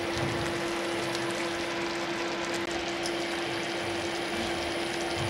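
Creamy spicy cheese noodle sauce simmering in a covered pot on an electric cooktop: a steady bubbling hiss with small pops, over a steady low hum.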